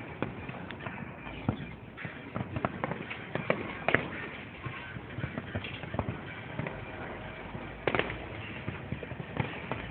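Fireworks display: a steady scatter of pops and crackles from bursting shells, with louder bangs about four seconds in and again near eight seconds.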